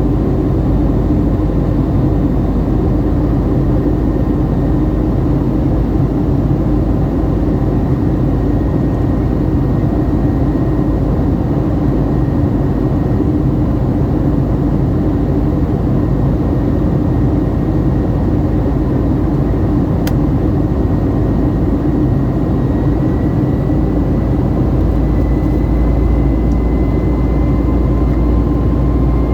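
Steady jet engine and airflow noise heard from inside the cabin of a Boeing 757-300 airliner, with a faint high whine that rises slightly in pitch near the end.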